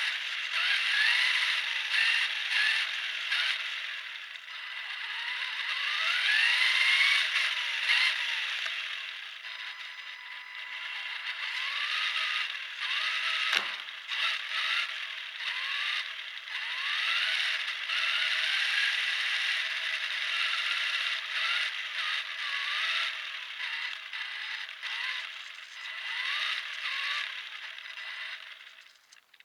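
Kyosho Javelin radio-controlled car driving, its motor and gears whining up and down in pitch with the throttle over a constant clattering rattle. One sharp knock comes about halfway through.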